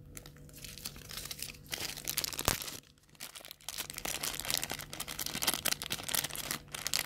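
Thin clear plastic bag crinkling and rustling as it is handled and pulled open, with one sharp click about two and a half seconds in.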